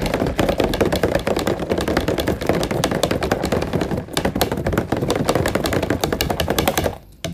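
Rapid, continuous clinking and rattling of a spoon stirring yeast and spirulina into water in a container, mixing the daphnia feed; it stops abruptly about seven seconds in.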